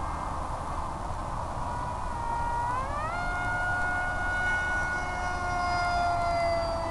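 Electric motor and propeller of an FPV flying wing whining steadily over hiss and wind rush, picked up by the onboard camera's microphone and sent over the analog video downlink. The pitch climbs smoothly about two to three seconds in as the throttle is opened, then holds and sags slightly.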